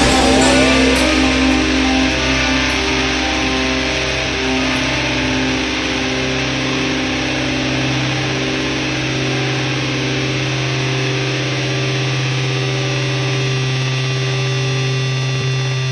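Sludge metal band's distorted guitar and bass holding one long, sustained droning chord with no drums. A sung vocal line ends about a second in.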